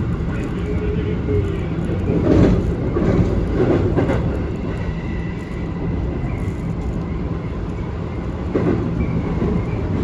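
Keikyu Main Line train running: a steady low rumble with a few knocks from the wheels, two or three close together a couple of seconds in and one more near the end.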